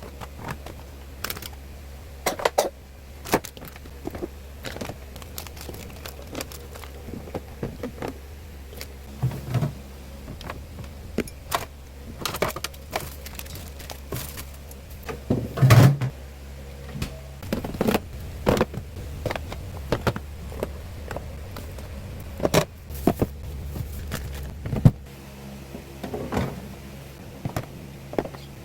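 Scattered clicks, knocks and thunks of household objects and containers being handled and set down, the loudest about halfway through. A steady low hum runs underneath and stops near the end.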